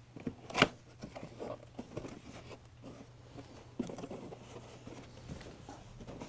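Cardboard boxes being handled: a sharp knock about half a second in, then scattered rustling and scraping of cardboard as an inner box is worked open and shifted in its carton, with another tap near four seconds.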